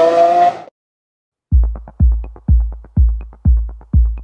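A car engine revving, rising in pitch, cuts off suddenly about half a second in. After a short silence, electronic music starts with a heavy drum-machine bass drum about twice a second.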